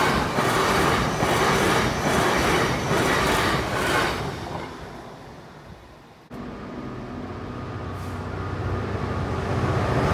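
A TransPennine Express passenger train passes over the level crossing at speed: a loud, pulsing rush of wheel and rail noise that fades away as it goes. About six seconds in, after a break, the engine of a GBRf Class 66 diesel locomotive rises steadily as it approaches.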